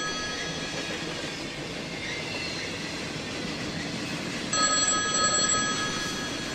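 Telephone ringing: a steady multi-tone electronic ring that stops just after the start and rings again for about two seconds from about four and a half seconds in, over a continuous low background rumble.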